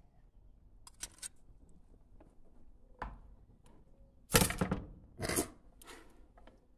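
Chef's knife and carving fork working on a wooden cutting board as a roast pork loin is sliced: a few light clicks and a knock, then two loud strokes and a fainter third from about four seconds in.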